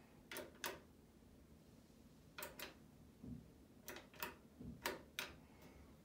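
Sharp clicks in pairs, four times, typical of the Yamaha T-33 tuner's front-panel push buttons being pressed and released. There are also two soft low knocks.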